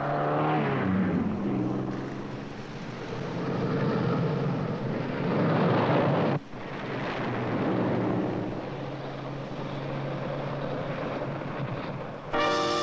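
Street motor traffic: a vehicle's engine goes by with a falling pitch in the first second or so, then steady traffic noise with a brief drop about six seconds in. Brass music comes in just before the end.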